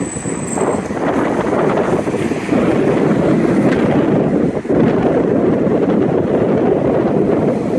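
City street traffic: cars and buses passing, with wind on the microphone. It grows louder about two and a half seconds in.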